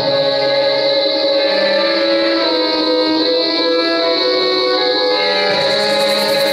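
Two violins playing slow, held notes together.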